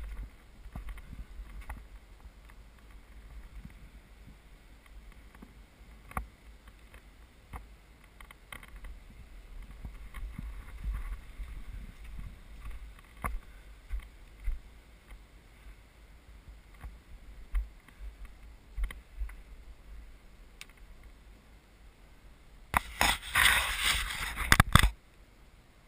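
Handheld camera handling noise: a low rumble with scattered small knocks and scrapes. About 23 seconds in comes a loud rustling burst lasting about two seconds, fingers rubbing over the camera and its microphone.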